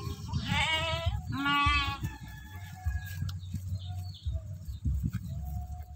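Sheep bleating: two loud, wavering bleats in the first two seconds, then fainter calls later. A low rustling runs underneath.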